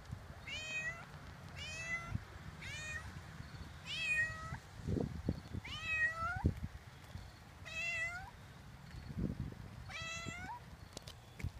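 Domestic cat meowing again and again at the person, about seven meows in a row, one every second and a half or so. A few dull low thumps come in between.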